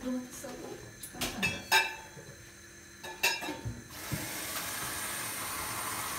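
A few clinks and knocks of a small metal saucepan being handled, then, from about four seconds in, kitchen tap water running steadily into the pan.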